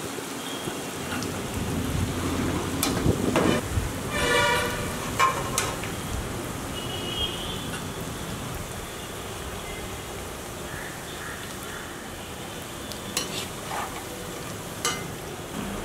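Battered cauliflower pieces deep-frying in hot oil in a kadai: a steady sizzle of bubbling oil. A few sharp clicks and a short ringing tone about four seconds in rise above it.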